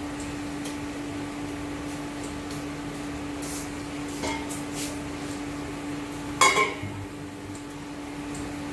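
A hot glass bowl being lifted out of a steel cooking pot with a cloth: a light clink about four seconds in, then a louder ringing clank as the bowl knocks against the pot about six and a half seconds in, over a steady low hum.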